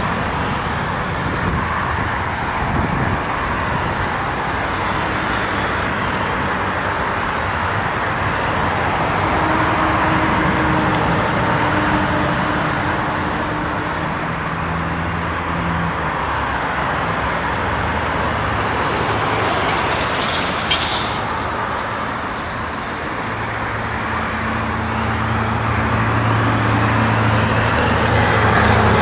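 Twin-engine business jet's engines running on the ground at taxi power: a steady rushing noise with a low hum, growing louder over the last few seconds.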